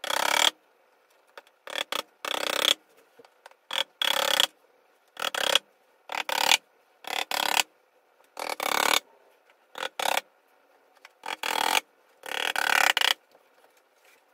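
Repeated short bursts of work noise, about one a second and often in pairs, as the hardboard back panel of a particleboard bookcase is fastened on.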